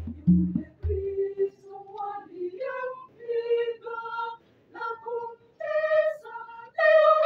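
A church choir with conga drum breaks off about a second in, leaving a high female part singing a melodic phrase unaccompanied, in Swahili, in short sung notes.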